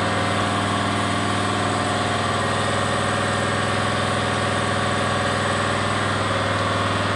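A motor running steadily: a constant droning hum with a fast, even pulse and no change in speed.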